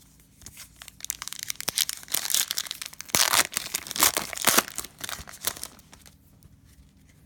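Cellophane wrapper of a trading-card cello pack crinkling and crackling as it is handled and the cards are pulled out, a run of irregular crackly bursts over about five seconds.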